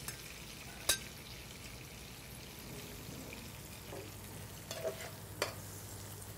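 Oil sizzling steadily in a frying pan of flounder with red onions, bacon and capers. A sharp click of a utensil about a second in, and a few lighter knocks near the five-second mark.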